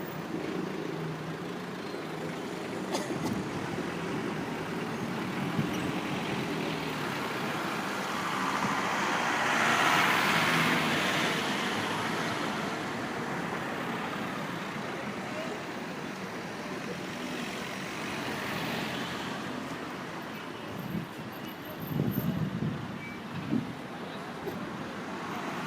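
Motor vehicle engine running with road traffic noise, a vehicle swelling past about ten seconds in, and a few low rumbles near the end.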